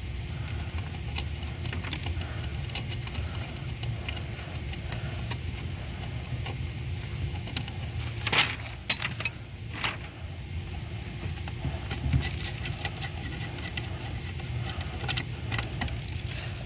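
Hand tools and loose metal parts clinking and rattling during car repair work, with a few sharper metallic knocks about eight and a half, ten and twelve seconds in. A steady low rumble runs underneath.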